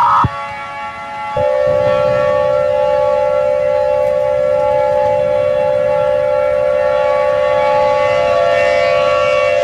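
Loud steady siren tone, civil-defense-siren style, holding one pitch over a low rumble; it starts abruptly about a second and a half in. Just at the start, a higher electronic alert tone cuts off.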